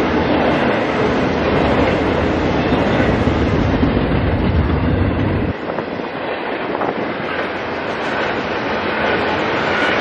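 Double-stack container freight train rolling past: a steady noise of wheels on rail and rattling well cars. The deep rumble underneath drops away suddenly about halfway through, while the wheel and car noise carries on.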